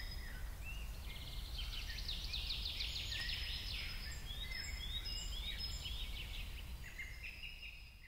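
Small birds chirping and twittering in a busy chorus of quick, repeated downward-sliding notes over a steady low background rumble, starting to fade out near the end.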